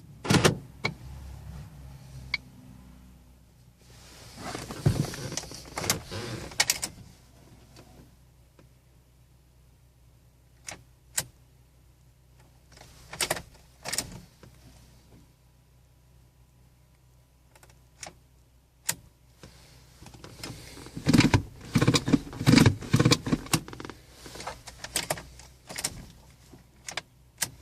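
Ford Mondeo Mk3 failing to start: a string of sharp clicks and short clattering bursts, thickest near the end, with no engine catching and running.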